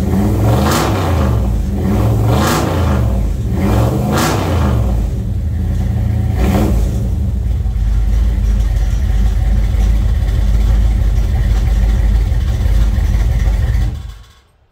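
1970 Chevrolet Chevelle engine running, revved four times in the first seven seconds, then idling steadily until it is shut off about fourteen seconds in.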